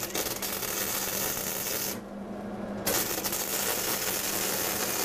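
Electric arc welding on steel: a steady crackling hiss from the welding arc, which breaks off for under a second about two seconds in and then strikes again, over a steady low hum.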